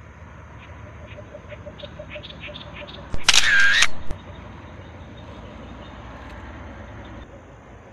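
A scoped hunting rifle firing once: a sudden loud report a little over three seconds in, lasting just under a second with a ringing tone.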